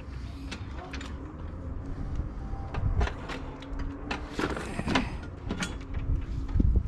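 Clattering and knocking from objects being handled, a string of short knocks with heavier thumps about three seconds in and near the end.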